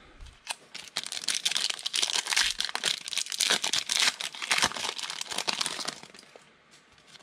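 Foil football card pack being torn open and crinkled by hand: a dense crackling rustle full of sharp crinkles that dies away about six seconds in.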